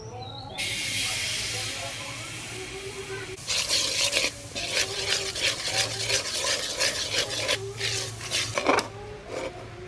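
A thick liquid hits a hot steel wok and sizzles with a steady hiss for a few seconds. Then a metal ladle stirs and scrapes it around the wok in quick repeated strokes, with a sharp clink near the end.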